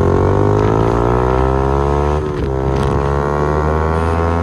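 Yamaha R15 motorcycle engine accelerating, its pitch rising, dropping briefly at a gear change about two seconds in, then rising again, over a steady low engine drone.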